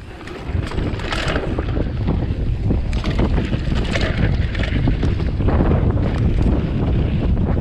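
Wind buffeting the microphone over the rumble of a mountain bike's tyres rolling fast down a dry dirt trail, with the bike clattering and knocking over bumps.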